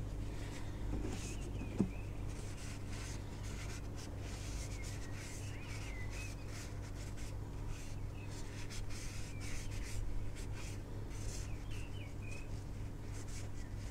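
Paper towel rubbing and wiping a plastic oil filter cap clean after a spray of brake cleaner, in short scuffing strokes, with a sharp click about two seconds in. Small birds chirp now and then over a steady low hum.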